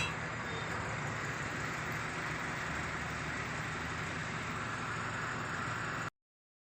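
Honda CR-V engine idling steadily, running after being installed. It cuts off suddenly about six seconds in.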